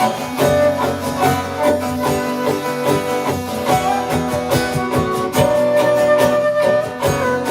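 Live acoustic band playing an instrumental passage: a plucked and strummed acoustic guitar keeps a steady rhythm under a held melody line.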